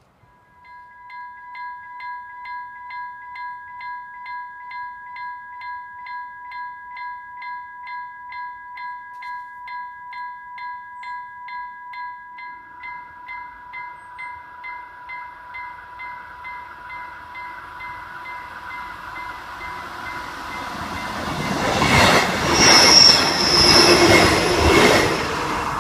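A level-crossing warning bell starts about a second in, ringing steadily at about two strokes a second. Near the end a Roslagsbanan electric commuter train approaches and passes close by. Its wheel and rail noise is the loudest sound, with a brief high wheel squeal as it goes past.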